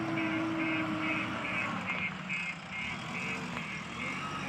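JCB 3DX backhoe loader's diesel engine running, with a high-pitched reversing alarm beeping steadily about twice a second. A low steady tone sounds over the engine for about the first second.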